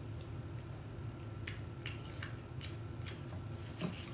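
A person eating: a handful of small, sharp clicks, starting about a third of the way in, over a low steady hum.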